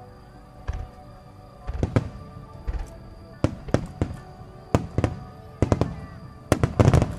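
Starmine aerial fireworks shells bursting in rapid succession: about a dozen sharp booms, coming closest together in a dense volley near the end. Music plays under the bangs.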